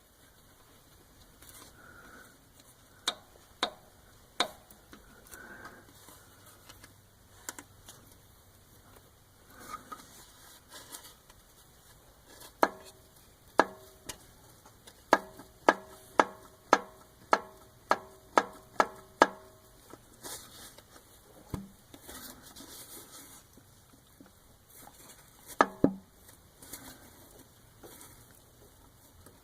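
Sharp metallic clacks with a short ringing tone: the worn connecting rod of a 1996 Eagle Vision's 3.5 L V6 being rocked by hand against its crankshaft journal, knocking through excess play because its bearing is worn through. Scattered single knocks come first, then a steady run of about two clacks a second midway, then a few more near the end.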